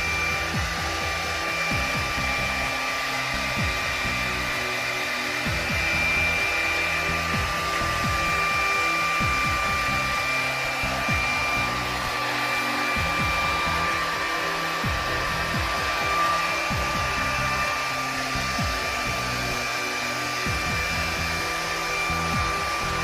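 Hair dryer running steadily through a blow-dry: rushing air with a constant high whine. Background music plays underneath.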